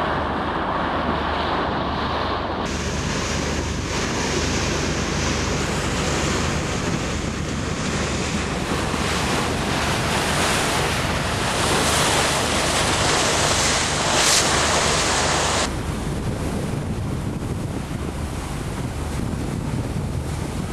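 Sea water rushing and splashing along the bow of a wooden sailing boat under way, with wind buffeting the microphone. The rush changes abruptly about three seconds in and again near sixteen seconds, when it turns duller.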